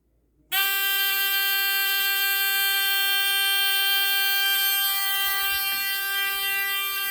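Fire alarm panel buzzer cutting in suddenly about half a second in and sounding one continuous, unbroken buzz, set off by the System Sensor i3 smoke detector going into alarm.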